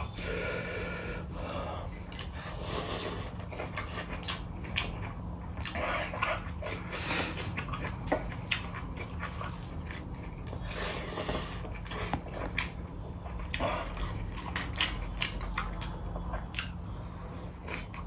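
A man eating rice with his hand from a steel plate: close chewing and mouth sounds with many irregular small clicks, and his fingers mixing rice on the plate.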